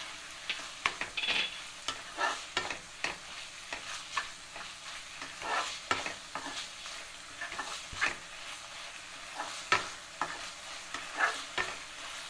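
Minced chicken sizzling in a pan while a spatula stirs it, knocking and scraping irregularly against the pan over a steady frying hiss.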